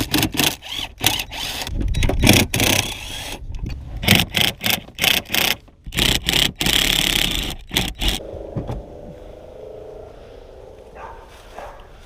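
Car interior being pulled apart by hand: a quick run of scrapes, knocks and rustles for about eight seconds, then quieter.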